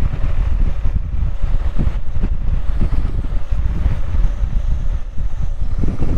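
Wind rushing over the microphone while riding a BMW R1100GS motorcycle, with the bike's boxer-twin engine running underneath.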